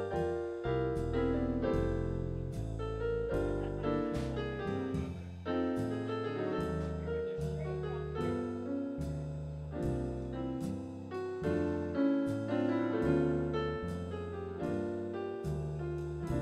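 Jazz piano solo on an electronic keyboard with a piano voice: a steady stream of struck chords and melody notes over low bass notes.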